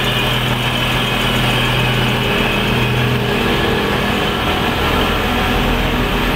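Stationary passenger train's engine idling with a steady low hum; the hum's tone shifts about three seconds in.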